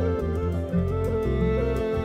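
Background music: an instrumental Celtic folk tune, with a fiddle carrying a stepping melody over guitar and steady low notes.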